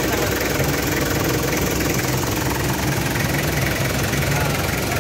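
Toyota 2L four-cylinder diesel engine idling steadily.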